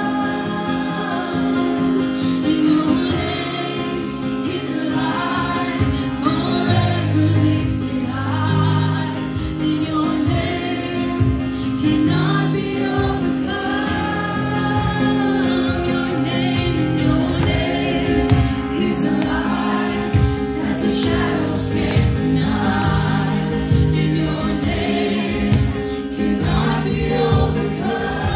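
A group of young people singing a contemporary worship song together. Instrumental backing holds sustained chords underneath, changing every few seconds.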